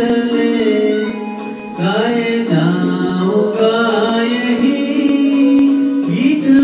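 Song music: a melody line carried over instrumental accompaniment, with light ticks of percussion; loudness dips briefly a little under two seconds in, then picks up.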